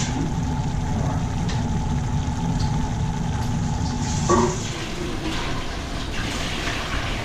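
Cooked pasta being drained: its hot water pours off in a steady rush that ends with a knock a little past four seconds in, then a lighter crackle.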